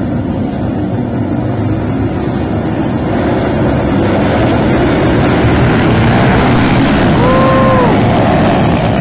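A pack of underbone motorcycles revving together at the start line, their engines growing louder as the riders open the throttle and pull away. A short, clear tone sounds about seven seconds in.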